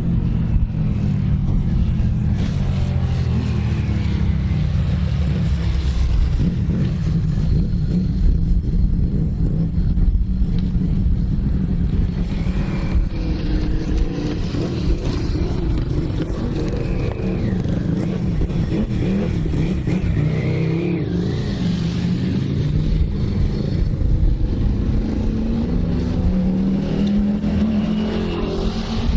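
Britten V1000 racing motorcycle's V-twin engine running, its revs rising and falling.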